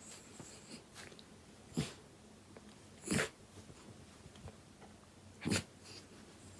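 Elderly miniature dachshund sneezing three times, short sharp bursts a second or two apart. These are frequent sneezes that come with severely inflamed gums and heavy nasal discharge.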